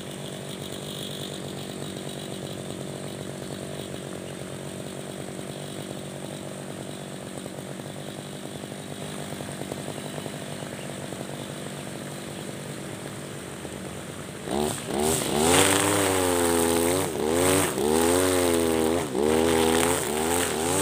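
Husqvarna 542RBS backpack brush cutter's 42 cc two-stroke engine idling steadily. About two-thirds of the way through it revs up loudly and starts cutting grass with square nylon trimmer line, its pitch rising and falling again and again as the throttle is opened and eased.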